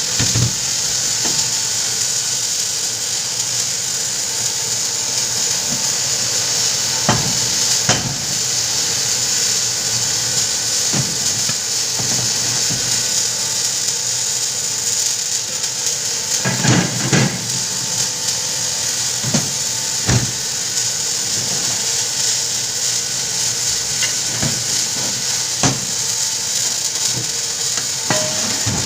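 Tools knocking and clinking against metal parts during repair work, a few scattered sharp knocks with a short cluster past the middle, over a steady high hiss.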